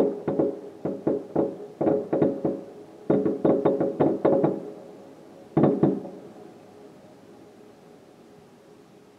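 Fireworks shells bursting in quick volleys of sharp bangs, ringing as if through a room, heard from indoors. Two rapid clusters of reports fill the first four and a half seconds, one more bang follows about a second later, then it goes quiet.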